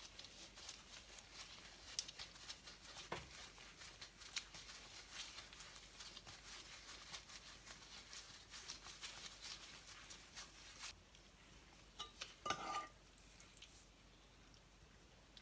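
Faint crinkling and ticking of disposable gloves as hands press and stretch a ball of steamed-bun dough into a flat round. It stops about eleven seconds in, and a few soft knocks follow about a second later.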